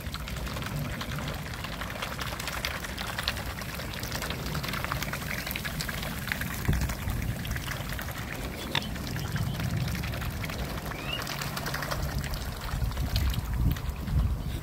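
Mute swans and cygnets feeding with their bills in shallow water, dabbling and slurping in a continuous run of small splashes and trickles. The splashing grows louder near the end.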